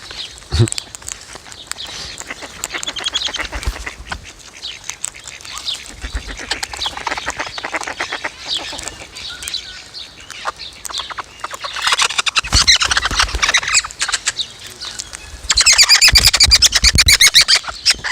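A flock of young Australian king parrots squabbling, with harsh squawks and chattering calls throughout. A loud burst of squawking comes about twelve seconds in, and a louder run of rapid, repeated calls near the end.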